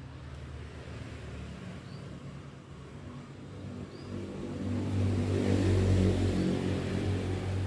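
A motor vehicle passing by, a low steady engine hum that swells in loudness about five seconds in and eases off near the end.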